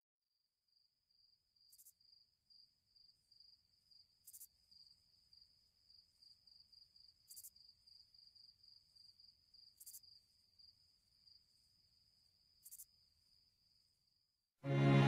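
Cricket chirping: a faint, steady, high-pitched pulsing trill, with a brief sharper click every two to three seconds. It cuts off near the end as music comes in.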